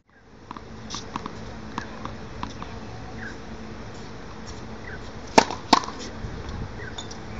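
Tennis ball struck by a racket on a serve: two sharp cracks about a third of a second apart, a little over five seconds in. Steady outdoor background noise and a few faint taps run underneath.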